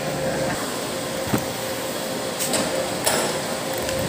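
A steady mechanical hum and hiss with a few light knocks.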